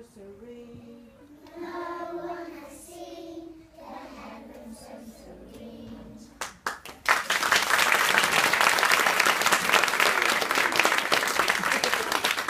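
A group of young children singing together on held notes, then a few scattered claps about six and a half seconds in, quickly swelling into steady applause that fills the rest.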